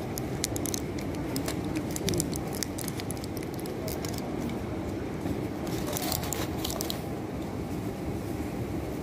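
Foil-and-plastic blister pack of tablets crackling and clicking as it is handled and tablets are pressed out, in quick runs of sharp crinkles through the first few seconds and again about six seconds in, over a steady low background noise.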